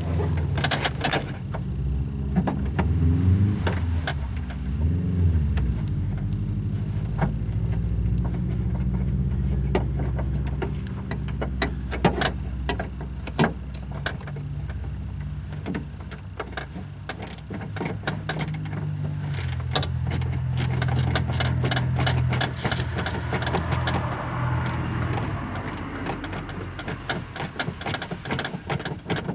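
A car engine idling steadily, its pitch rising and falling briefly near the start. Over it, a small socket ratchet clicks in quick runs against metal as the door-handle bolts are worked loose, thickest in the second half.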